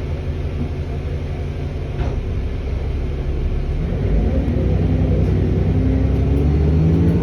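Diesel engine of a National Express Coventry bus running, then building up and rising in pitch from about two seconds in as it pulls away under power.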